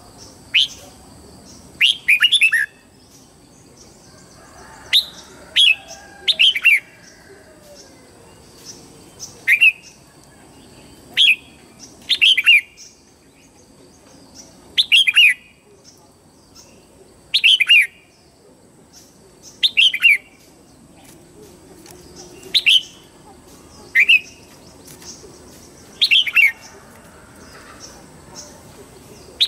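Red-whiskered bulbul singing: short phrases of a few quick falling notes, repeated every one to three seconds.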